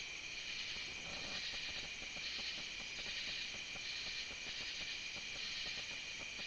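Night-time insect chorus: a steady high-pitched trill with a pulsing, rhythmic call repeating about twice a second.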